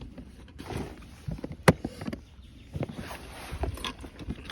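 A fishing tackle box being handled and opened: scattered clicks, knocks and rattles, with one sharp snap about a second and a half in.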